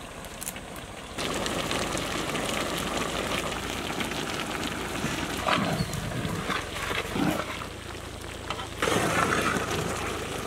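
Large pot of chicken gravy sizzling and bubbling after a handful of curry leaves is dropped in. It is a steady, rain-like hiss that starts about a second in and grows louder near the end as the gravy is stirred with a long paddle.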